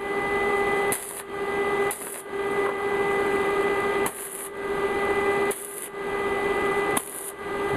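A small electric motor on a power tool, running with a steady whine whose sound dips and returns every second or so.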